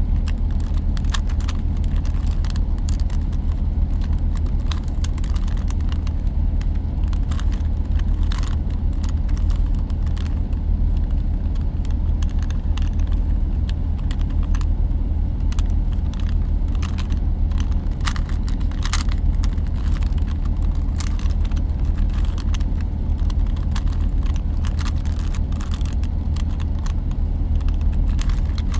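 Plastic Rubik's Cube layers being turned by hand, giving irregular quick clicks and clacks. Under them is a steady low hum.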